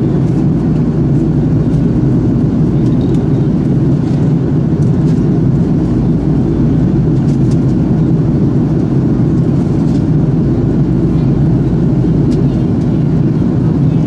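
Steady engine and air noise of an Airbus A330-200 heard from a window seat inside the cabin as it climbs out after takeoff: a dense, even low rumble that holds unchanged.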